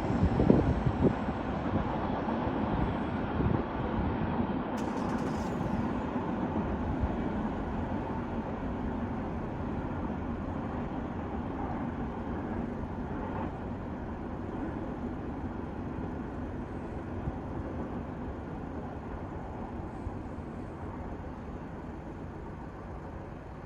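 Freight train rolling past on the rails, its wheel and rail noise slowly fading as it moves away. A few sharp clacks come in the first seconds.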